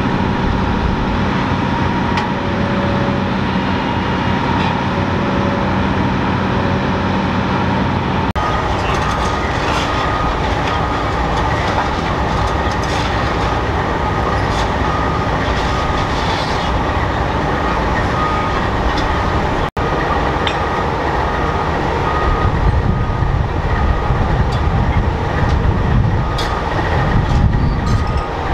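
Diesel engines of heavy machinery running steadily, with scattered metallic clanks and knocks and a louder low rumble in the last few seconds.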